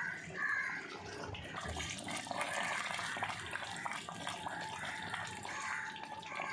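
Fish and okra curry bubbling on the boil in a pot: a steady, dense crackle of small bubbles popping.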